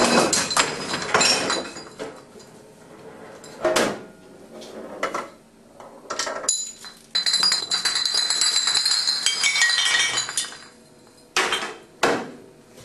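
Rows of glass beer bottles toppling like dominoes, clinking and clattering against each other and the floor. Two long runs of dense clatter, with a few single knocks between them and two more near the end.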